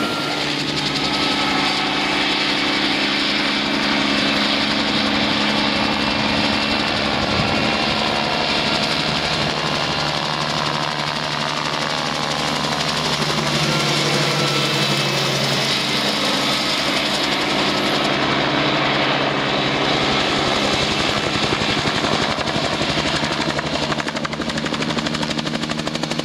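Bell 47 helicopter in flight, its piston engine and two-bladed rotor running steadily.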